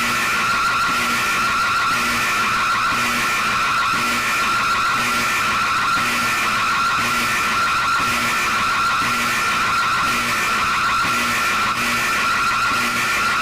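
Emergency alert alarm: a loud, steady electronic tone over a noisy hiss, with a faint low blip about once a second.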